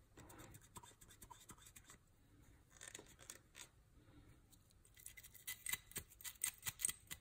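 Faint scratching and rubbing of a pistol part being scrubbed clean, with many small clicks and ticks of handling that grow busier over the last couple of seconds.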